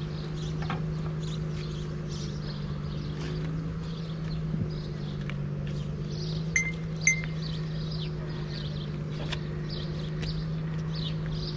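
Small birds chirping over a steady low hum, with two short high peeps about half a second apart just past the middle.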